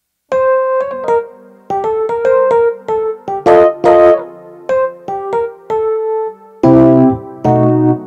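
Roland GR-20 guitar synthesizer's 'Smooth Rhodes' electric piano patch, played from a Godin MIDI guitar. A melody of single notes starts just after a brief silence, and lower, fuller chords come in near the end.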